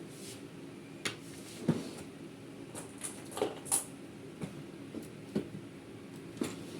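Irregular clicks and knocks of hard plastic and small parts being handled and pried, as when an all-in-one PC's casing is being taken apart, over a steady low hum.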